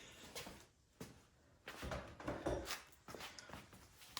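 Faint clicks, knocks and rustling of hands handling small engine parts and a tool while disconnecting lines from a snowblower carburetor.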